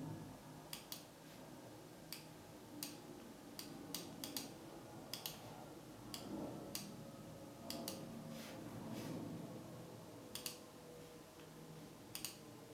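Sharp clicks at irregular intervals, several coming in quick pairs, over a faint low hum.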